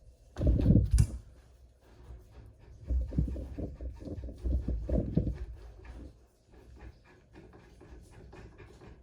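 Handling noises from rifle-cleaning gear being taken off and set down: a loud burst of low thumps and clunks about half a second in, then a run of knocks and rattles from about three to five seconds in.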